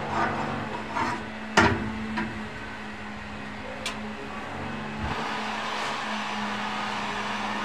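Electric heat gun running with a steady hum and blowing hiss as it heats thin PVC electrical conduit to soften it for bending; the blowing grows louder about five seconds in. A few sharp knocks, the plastic conduit being handled, come in the first couple of seconds.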